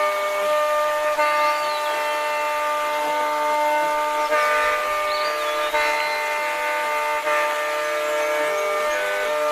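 Soundtrack music: a sustained high chord held over a lower line of notes that change every second or so, with a couple of brief gliding high notes.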